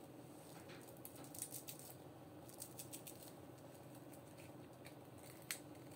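Faint crackling and ticking of a shattered tempered-glass phone screen protector being bent in the fingers, its shards snapping and rubbing against each other. There are clusters of small clicks about a second in and again about two and a half seconds in, and one sharper snap near the end.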